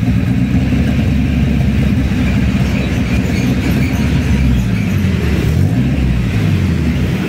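Suzuki APV Arena's engine running, heard at the tailpipe as a steady, low exhaust note. Its pitch wavers a little about four to six seconds in.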